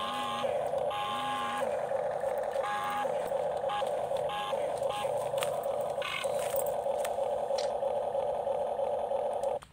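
Small electric motor of an XCMG RC toy excavator whining steadily as the boom and bucket move, cutting off suddenly near the end.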